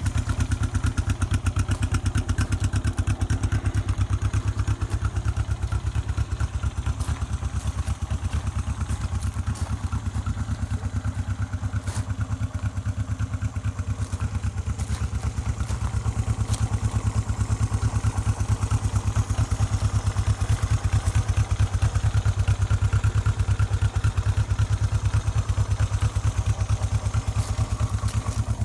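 1974 Honda CB360's air-cooled parallel-twin engine idling steadily, with an even, low exhaust pulse.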